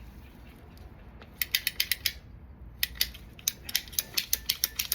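Ratcheting PVC pipe cutter clicking as its handle is worked through the pipe: a quick run of sharp clicks about a second and a half in, a brief pause, then a longer steady run of clicks at several a second.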